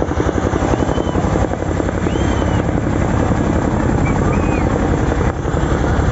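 Boeing CH-47 Chinook tandem-rotor helicopter flying low past, its two rotors making a loud, rapid, steady chopping beat.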